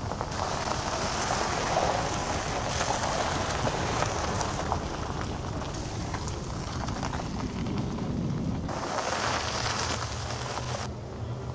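A car driving slowly on a gravel driveway: a steady rush of tyres crunching on gravel, with the engine underneath. The sound changes abruptly about three-quarters of the way through and again near the end.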